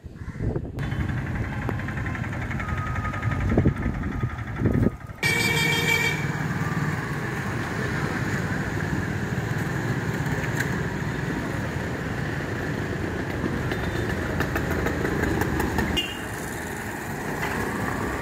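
Road traffic with motorcycle and scooter engines running, a steady noise that changes abruptly about five seconds in.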